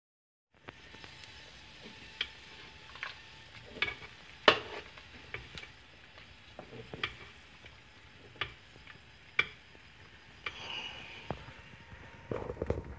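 Wood fire crackling under a simmering pot: sharp, irregular pops over a low steady hiss, with a few louder bumps near the end.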